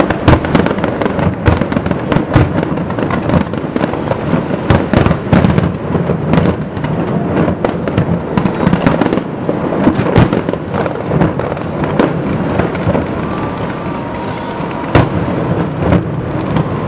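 Aerial fireworks display: shells bursting in a rapid, irregular barrage of bangs and crackling, with a few sharper bangs about ten, twelve and fifteen seconds in.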